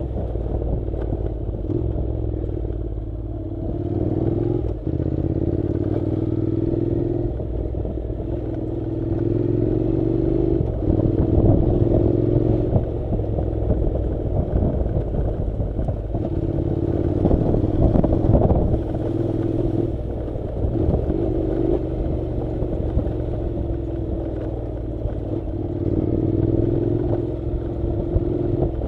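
Honda NC700 motorcycle's 670 cc parallel-twin engine running under load on a dirt road, its pitch climbing and falling back several times with throttle and gear changes. Clatter and knocks from the bike jolting over the rough surface run through it.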